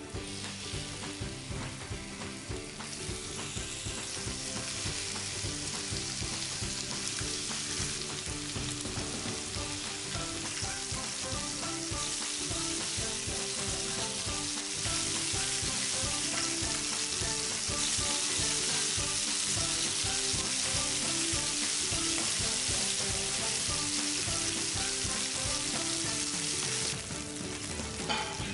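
Chicken thigh pieces sizzling in hot oil in a frying pan. The sizzle grows louder partway through and drops off near the end.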